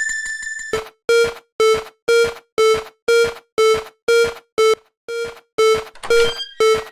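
Electronic level-crossing warning bell going 'kan-kan': evenly spaced, clipped pitched strikes about two a second. A higher-pitched ringing tone stops just under a second in, before the lower strikes start.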